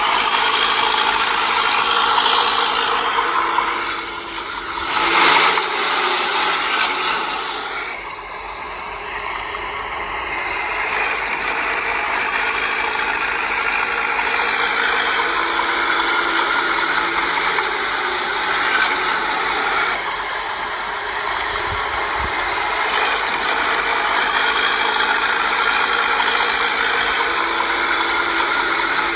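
Bulldozer working: its diesel engine runs steadily under a continuous metallic clanking and rattling from the crawler tracks. There is a brief louder surge about five seconds in.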